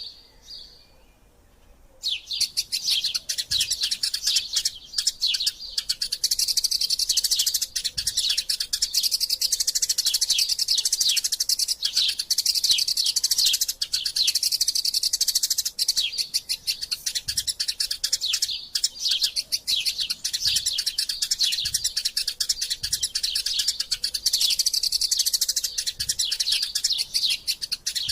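Eurasian tree sparrows chattering in a fast, dense stream of high chirps, the excited calling of birds squabbling. It starts suddenly about two seconds in after a near-quiet start.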